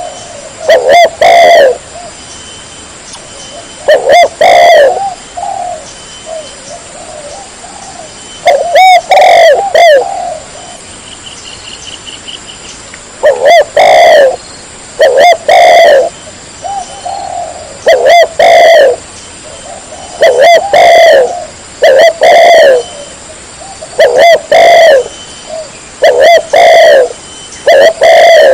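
Spotted dove (Vietnamese cu gáy) cooing loudly and close: short low coo phrases of a few notes each, repeated about every two seconds.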